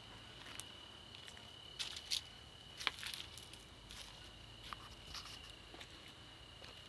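Footsteps on dry leaf litter and dirt, irregular soft crackles and scuffs, loudest about two and three seconds in, over a steady high insect drone.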